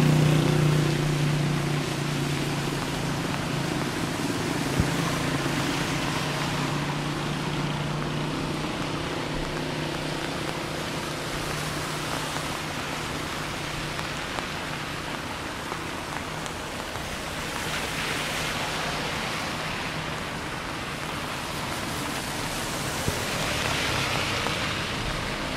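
Rain falling with traffic on a wet road: a steady hiss of rain and tyres, a vehicle's low engine hum that fades over the first several seconds, and two swells of tyre hiss as vehicles pass later on.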